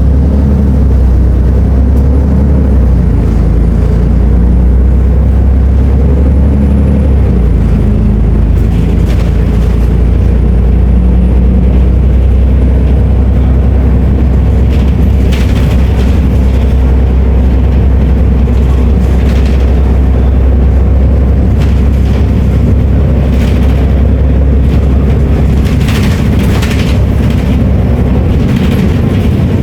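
Volvo B340M Euro V bus engine running with a heavy, steady low drone; its low note shifts a few seconds in. Scattered rattles and knocks come in over the second half.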